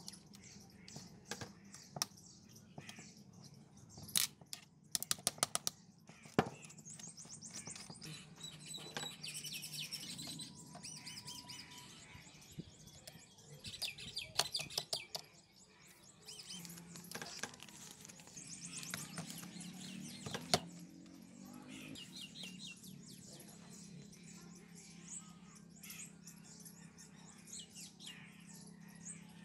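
Small birds chirping throughout. About four to six seconds in comes a quick run of sharp metallic clicks as steel engine parts are handled on the aluminium crankcase, and there is one more click later.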